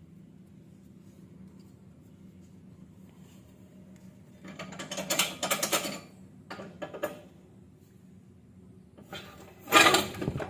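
Hand ratchet wrench clicking in a quick burst for about a second and a half, then a shorter burst, as a stabiliser link nut is tightened by hand. A loud clank comes near the end.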